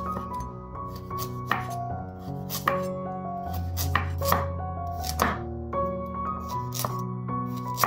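Chef's knife slicing a carrot into rounds on a bamboo cutting board: a crisp knock each time the blade goes through and meets the board, irregular, about one or two a second, over background music.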